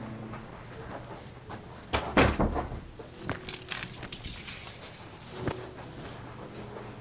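Handling noise: a quick cluster of knocks and clatter about two seconds in, then a brief rustle and a couple of fainter knocks.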